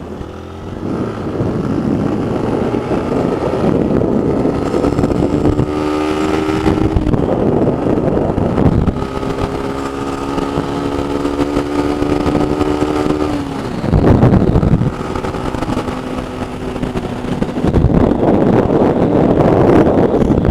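Single-cylinder Honda motorcycle engine running under way. Its note climbs in pitch and breaks off a couple of times, holds steady, then drops away about two-thirds of the way in, with a loud rush of noise just after.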